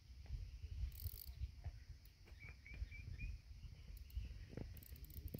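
Faint riverside ambience: a steady high hiss of insects over a low rumble, with a bird giving four short chirps about two and a half seconds in.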